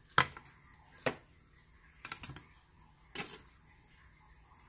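Metal kitchen tongs clacking against a baking pan and a ceramic plate while pork ribs are lifted across: a sharp clack just after the start, another about a second in, then lighter clicks around two and three seconds in.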